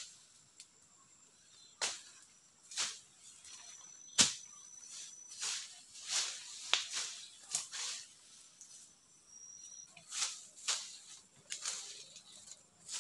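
Dry leaf litter and twigs rustling and crackling in irregular bursts as a person moves and works on the forest floor, with one sharper snap a little past four seconds in.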